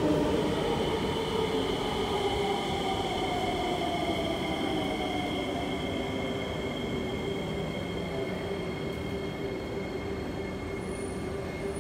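Electric metro train running at the platform, with steady high whining tones. A lower tone slides down in pitch over the first half, and the whole sound grows slowly quieter.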